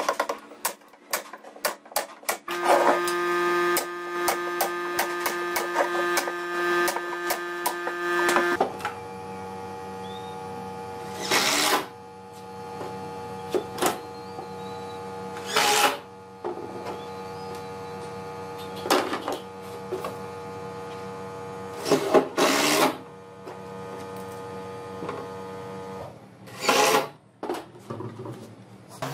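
Pneumatic brad nailer firing a rapid string of shots into a plywood drawer box, then a cordless drill driving screws in short bursts, five in all, to fix metal drawer slides. A steady mechanical hum runs underneath.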